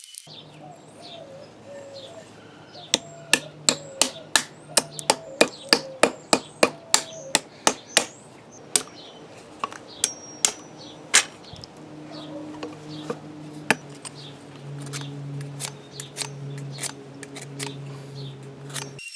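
A hammer striking in a quick run of about three blows a second for several seconds, then single blows at wider spacing, over a low steady hum.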